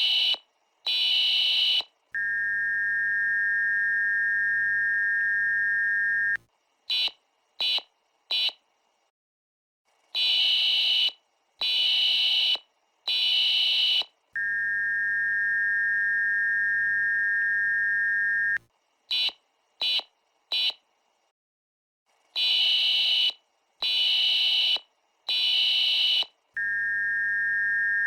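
Sped-up, raised-in-pitch US Emergency Alert System signal repeating: three harsh digital data bursts (the SAME header), about four seconds of the steady two-note attention tone, then four short bursts (the end-of-message code) and a brief pause. The cycle comes round about every twelve seconds, more than twice over.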